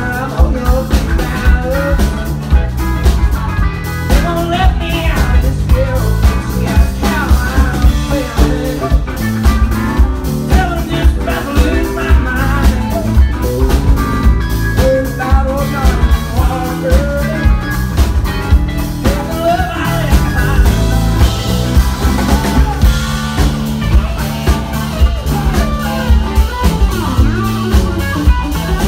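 Live country band playing: a man singing over strummed acoustic guitar, electric guitar and a drum kit keeping a steady beat.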